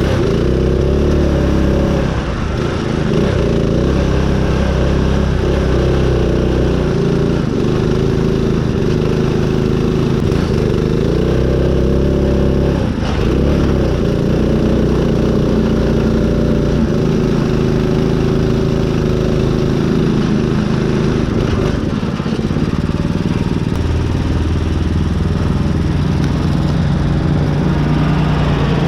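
Small engine of a riding mud mower running hard, its pitch dipping and climbing back several times as it labours through mud.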